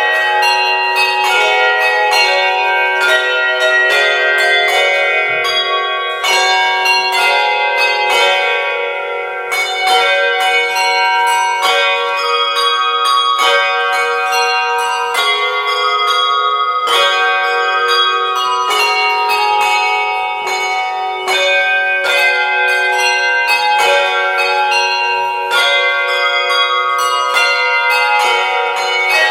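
Tuned handbells played by a team of handbell ringers, a melody of many struck notes that overlap and ring on.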